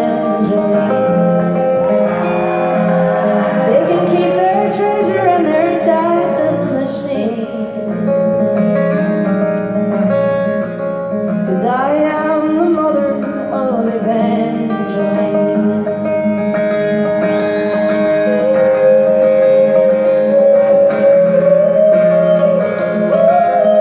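Live acoustic guitar with a woman singing: held, wavering vocal notes over the strummed guitar in the first half. The guitar carries on with little singing near the end.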